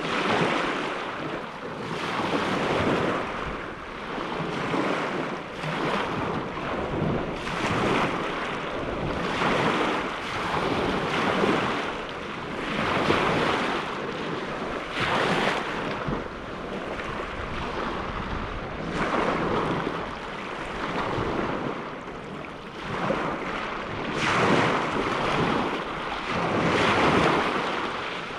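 Lake waves breaking and washing in, rising and falling in a steady series of surges about every two seconds.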